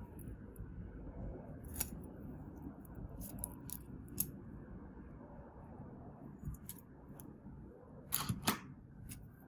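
Scattered small clicks and taps of tools and parts being handled on a phone under repair, a few seconds apart, with a louder cluster of clicks about eight seconds in, over a low steady hum.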